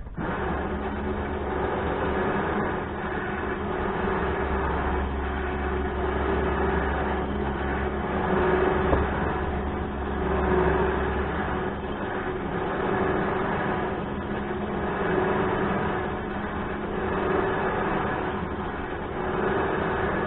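Electric trailer winch running steadily, its motor and gear drum whining with a swell about every two seconds as the drum turns and the cable pays out.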